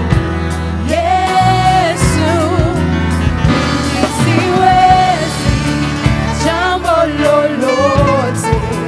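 Gospel worship music: a sung melody with vibrato over a band with bass and a steady drum beat.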